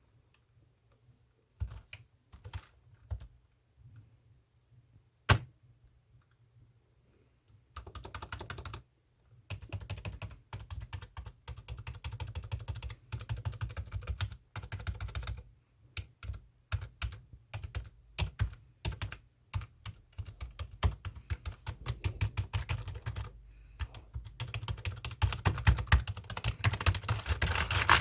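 Computer keyboard being typed on: a few scattered key presses at first, then fast continuous typing with short pauses, growing louder near the end.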